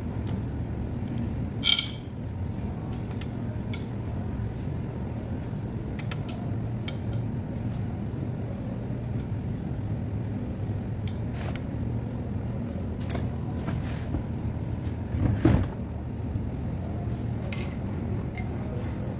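Scattered metallic clicks and clinks of a long-handled socket wrench on the cylinder-head bolts of a bare Nissan V6 engine being tightened, over a steady low rumble. There is a sharp ringing clink near the start and a heavier knock late on.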